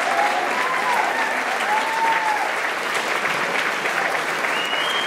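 Audience applauding steadily, with a few voices calling out over the clapping.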